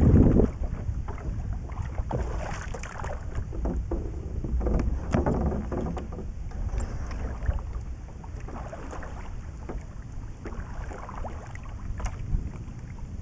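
Water sloshing and splashing around a sea kayak as the paddler gets in and starts paddling, with irregular paddle-blade splashes over a low rumble of wind on the deck-mounted camera's microphone. It is loudest right at the start, while he is still boarding.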